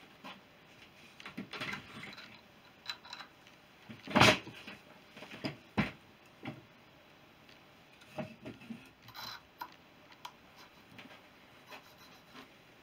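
Scattered clicks and knocks as a BSA B31's spoked front wheel and its hub parts are handled on a wooden workbench. One sharp loud knock comes about four seconds in and a smaller one about a second and a half later, with small clinks near the end as the hub's distance piece is fitted by hand.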